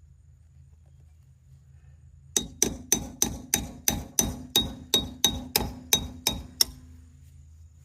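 Hammer striking metal in a quick run of about sixteen blows, about four a second, each with a short metallic ring, stopping suddenly near the end; hammering out the old, stuck tire valve stem.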